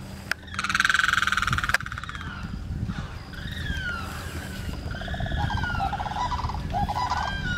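Limpkin giving a loud, harsh call lasting about a second near the start. It is followed by a series of shorter, curving bird calls and a few lower rattling notes.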